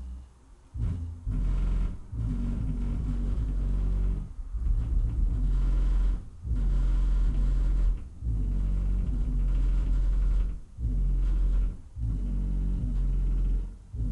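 Bass-heavy music played loud through four 12-inch subwoofers: deep, sustained bass notes that drop out briefly about every two seconds.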